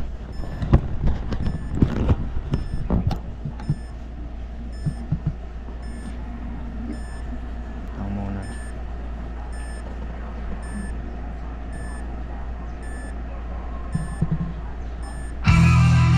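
Steady low electrical hum with a short electronic beep repeating about every two-thirds of a second. Clicks and knocks in the first few seconds, and rock music with electric guitar starts near the end.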